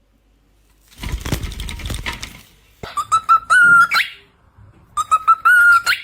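A short scuffling rustle, then a pet bird whistling twice: each time a quick run of clicks leads into a held whistle that bends upward at the end.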